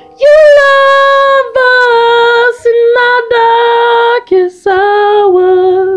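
A woman singing unaccompanied: a run of long held notes with short breaks, stepping gradually lower in pitch and ending abruptly.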